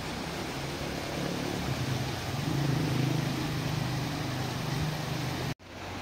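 Shallow rocky river rushing in a steady hiss, with a low engine hum of a passing vehicle that swells in the middle and eases off. The sound drops out for an instant near the end.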